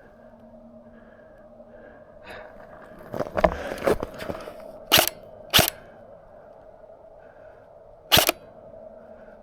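Three sharp airsoft gun shots, two about half a second apart past the middle and a third near the end, after a short spell of crunching and rustling in snow.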